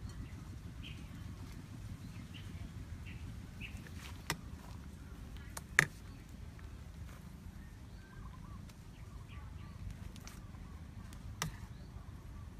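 A few sharp clicks of a spoon and utensils against a bowl and wooden chopping board while green peppers are stuffed, three of them with the loudest near the middle. Under them a steady low outdoor rumble with faint bird chirps.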